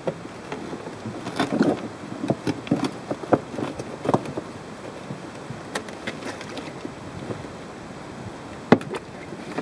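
Handling noises as a black plastic pond box and its rubber liner are shifted and settled into a dug hole by hand: scattered scrapes, rustles and light knocks, with one sharper knock near the end.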